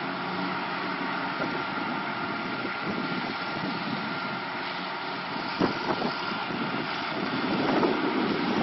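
Fire hose spraying water onto a burnt-out car, a steady rushing hiss over a steady engine drone, with a couple of sharp knocks about five to six seconds in.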